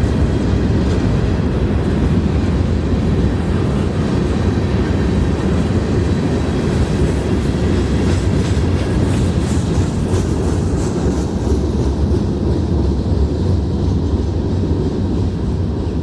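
Train rolling past: a steady, loud low rumble of wheels on rail, with faint clicks over the joints in the middle.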